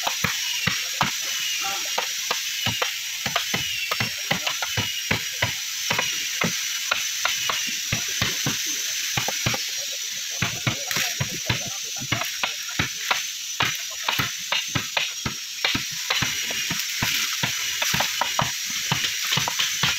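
Hand hammers striking chisels and wooden planks of a boat hull: a busy, irregular run of sharp knocks, several a second, from two workers tapping at once, over a steady high hiss.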